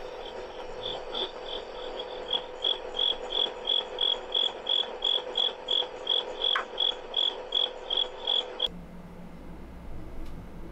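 Cricket chirping in even pulses, about three chirps a second, over a steady hum, heard through a security camera's recording played back on a phone. The recording cuts off suddenly near the end, leaving only a low hum.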